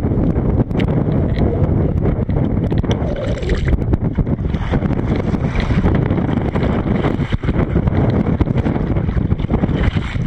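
Strong wind buffeting the microphone, a deep rumble that rises and falls in gusts, over choppy water around a kayak.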